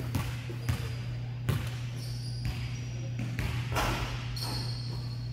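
Basketball dribbled on a hardwood gym floor, a few sharp bounces in the first second and a half, with short high sneaker squeaks on the court. A steady low hum runs underneath.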